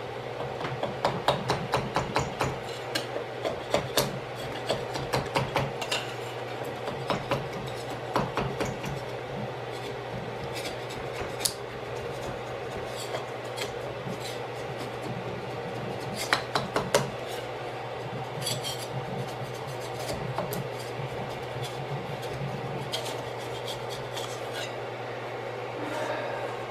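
Thin metal scraper blade scraping and ticking against a 3D printer's glass bed as it pries a freshly printed plastic stencil loose, in irregular bursts of quick clicks and scrapes, thickest in the first several seconds. A steady low hum runs underneath.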